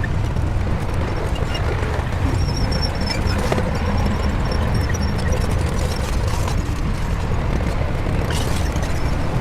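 Shantui crawler bulldozer's diesel engine running steadily with a deep rumble, with faint clanks and a few high squeaks from the machine's tracks and blade linkage.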